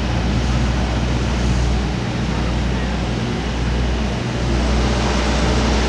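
Steady low mechanical rumble and hum under an even hiss, without a break or change, from engines or machinery running in the background.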